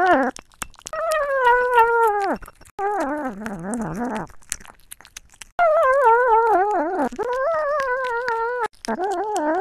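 Ginger kitten eating wet food while making long, wavering, sing-song meows, about five in a row with short breaks. It is picked up close by a microphone lying in its food bowl, with wet chewing and licking clicks in between.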